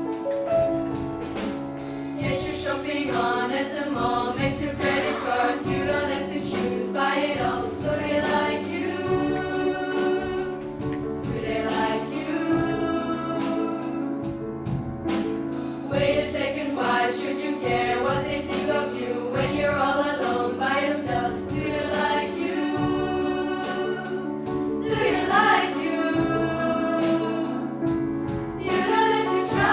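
Girls' children's choir singing a pop song arrangement in harmony, accompanied by piano.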